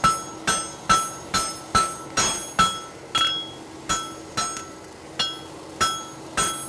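Hammer blows on a hot horseshoe on an anvil as the farrier and his striker iron out the shoe: a steady rhythm of about two to three blows a second, each with a short metallic ring, the rhythm loosening briefly partway through.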